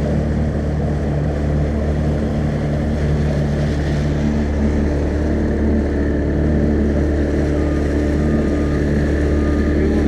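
Tiller-steered outboard motor running steadily at speed, driving a small flat-bottomed fishing boat, with water rushing along the hull.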